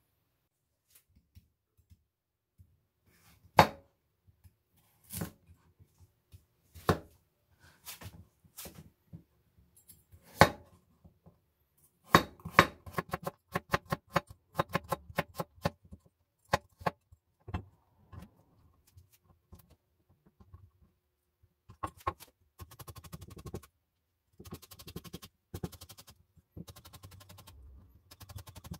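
Kitchen prep on a cutting board: a few sharp knocks of things being set down, then runs of quick knife strokes, the fastest and most even near the end.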